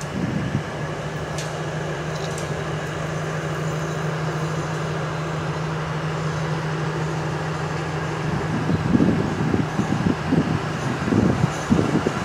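Diesel locomotive of a container freight train approaching slowly, its engine running at a steady low note. From about eight seconds in, an uneven, louder low rumble comes in on top.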